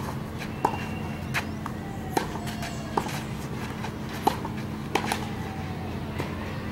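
Tennis rally on a clay court: about seven sharp pops, roughly one a second, as rackets strike the ball and the ball bounces, some hits much louder than others, over a steady low hum.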